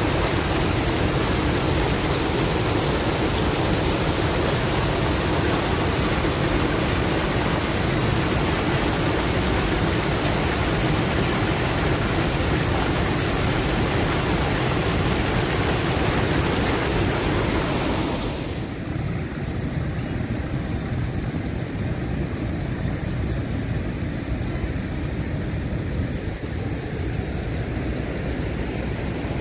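River water pouring over a low weir and churning in the pool below, a steady rushing noise. About 18 seconds in it changes suddenly to a lower, duller rumble with little hiss.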